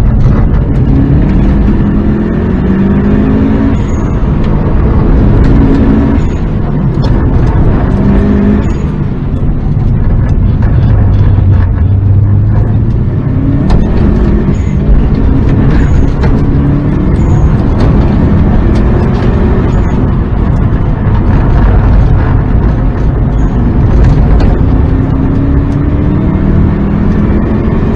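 Subaru Impreza WRX GDA's turbocharged flat-four engine, tuned with raised boost, heard from inside the cabin while driven hard: repeated rising pulls up through the revs that fall back at each shift, and a lower steady drone for a few seconds near the middle. Road and tyre noise run underneath.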